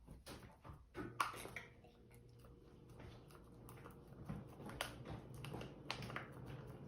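Light, scattered clicks and rustles of cardboard craft pieces being handled and pressed together, the sharpest click about a second in.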